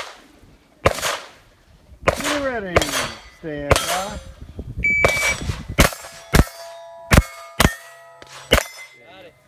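Gunshots at steel targets, most followed by the ringing clang of a hit steel plate. A shot timer gives one short beep about halfway through, and a quick string of about five shots and ringing plate hits follows it.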